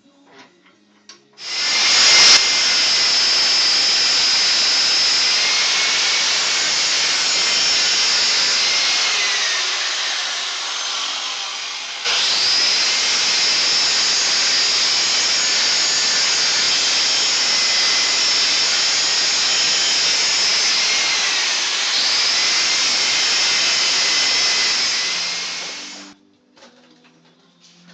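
Electric drill boring into steel with a freshly sharpened bit, running steadily with a high whine that sags in pitch twice as the bit bites harder. It eases off briefly about ten seconds in, picks straight back up, and stops just before the end.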